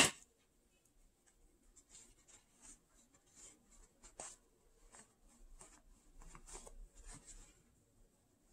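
Faint, irregular rustling and scratching as fiberfill stuffing is pushed by hand into a sewn fabric cat doll, starting about two seconds in.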